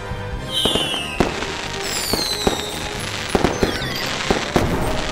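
Cartoon fireworks: rockets with falling whistles, then a string of sharp bangs and crackles, over background music.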